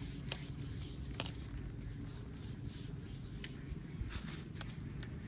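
Thin plastic bag rustling with a few light clicks as a hand rummages in it for blue PVC pipe elbow fittings, over a steady low rumble.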